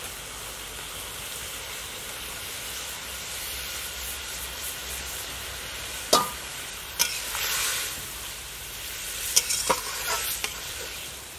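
A watery curry sizzling and simmering in a metal kadai. From about six seconds in, a metal spatula stirs it, scraping and clinking against the pan several times.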